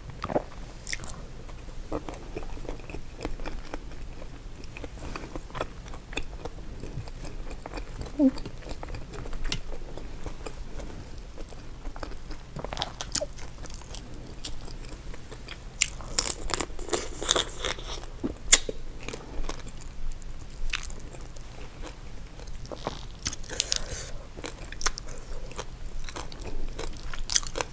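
A person eating seafood boil close to the microphone: chewing and biting, with scattered clicks and two denser spells of crunching, around the middle and again near the end.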